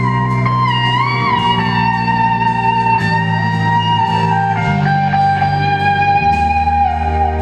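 Live electric lead guitar playing a slow blues melody: long sustained, overdriven notes with a bend and vibrato about a second in, then stepping slowly downward. Under it, held low chords change every second or two.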